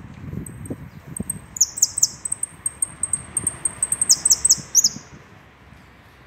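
Saffron finch (Argentine jilguero) singing: a high, rapid phrase of sharp, repeated down-slurred notes that starts about a second and a half in and ends near five seconds, with two bursts of quick strokes. A few soft knocks come before the song.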